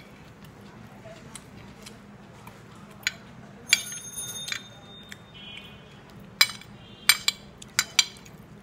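A metal spoon clinking and scraping against a ceramic plate while eating rice: a few sharp clinks, one ringing on for almost a second, then a quick run of clinks near the end.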